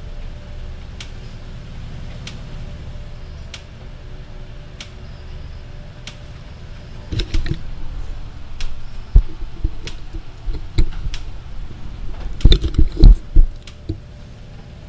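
Sharp ticks a little over once a second over a steady low hum, then about halfway through a run of loud, low thumps and knocks, loudest near the end.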